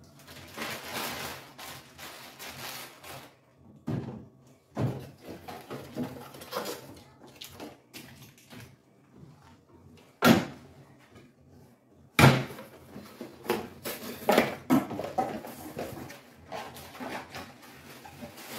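Packages and other goods being put into the lower shelf of a wooden kitchen cabinet: rustling and handling noise broken by sharp knocks, the two loudest about ten and twelve seconds in.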